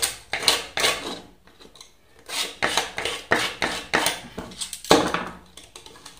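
Enamel insulation being scraped off the end of an enamelled copper coil wire against a plywood board: quick rasping strokes, about three a second, with a pause about a second in before a longer run of strokes.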